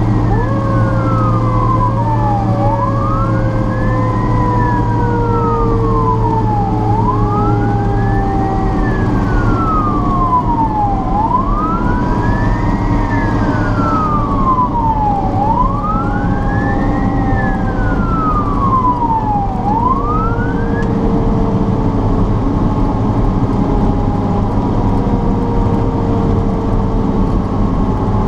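Fire truck siren in a slow wail, rising and falling about every four seconds, over the steady rumble of a truck engine heard from inside the cab. The wail breaks off partway up about three quarters of the way through.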